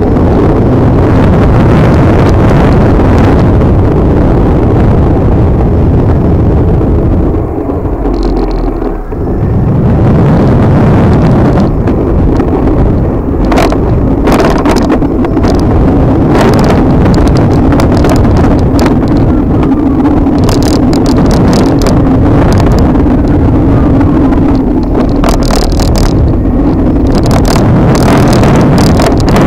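Wind buffeting the microphone and road noise while riding a Daymak 72-volt electric scooter, over a steady low hum, with scattered knocks from bumps. The wind noise drops briefly about eight seconds in, then comes back.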